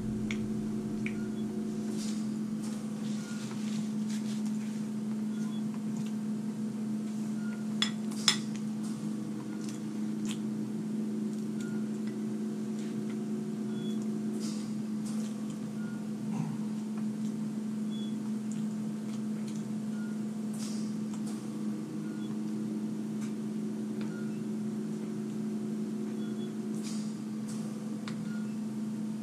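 A steady low hum, with a spoon now and then clinking and scraping against a bowl of ice cream, including two sharp clinks about eight seconds in.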